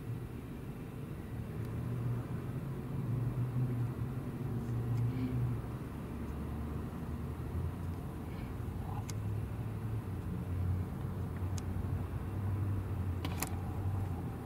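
A car engine running at a steady low idle, with a few short clicks in the second half.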